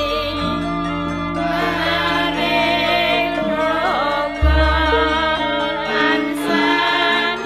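Music with singing over sustained instrumental tones; a deep bass note comes in about four and a half seconds in.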